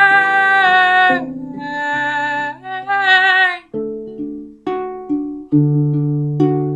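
Song with a singing voice holding a long note, then a further sung phrase, over plucked string accompaniment. From about halfway through the voice stops and the plucked strings play alone, single notes and chords each ringing out and fading.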